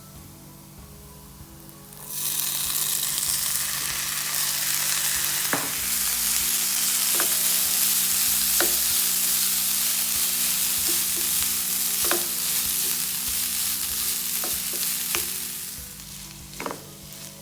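Food sizzling in a hot pan of oil, starting suddenly about two seconds in as something goes into the pan. A spoon knocks and scrapes the pan now and then, and the sizzle dies down near the end.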